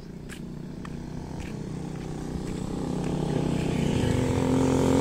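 Motorcycle engine approaching, growing steadily louder.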